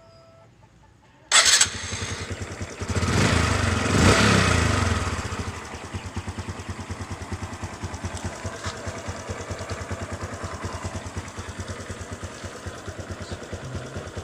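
Honda RS125 Fi motorcycle engine starting about a second in, revved for a couple of seconds, then settling into a steady, even idle. It is the test run after a valve clearance adjustment.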